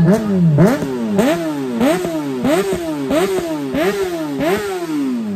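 Honda motorcycle engine revved in a row of quick throttle blips, a little under two a second. Each rev jumps up sharply in pitch and falls back; the last one dies away near the end.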